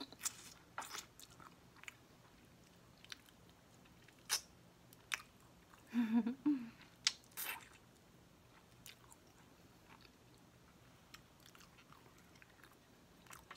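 Close-up mouth sounds of a person biting and chewing rotisserie chicken wing meat: scattered wet clicks and smacks. A short hummed "mmm" comes about six seconds in.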